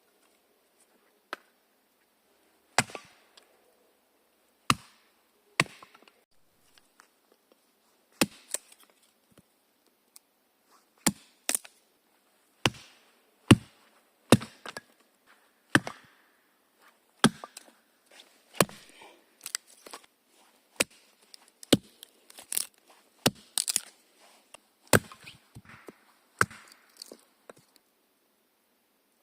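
Axe chopping wood: about twenty sharp blows at an uneven pace, one every second or so, with short pauses between runs of strikes.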